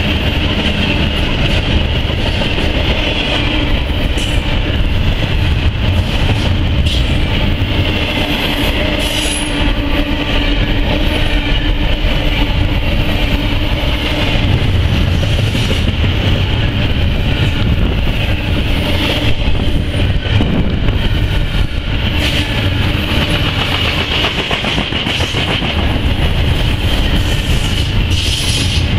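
Double-stack intermodal freight train's well cars rolling past: a loud, steady rumble of steel wheels on rail, with scattered clacks and a steady high ring above it.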